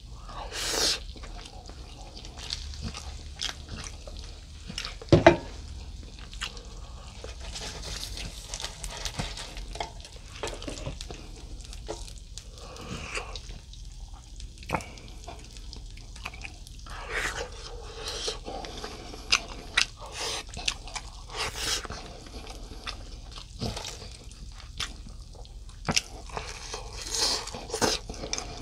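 Close-miked eating sounds: wet chewing and biting of grilled mackerel, broken by irregular sharp clicks of wooden chopsticks against the dishes and the grill pan, the loudest about five seconds in.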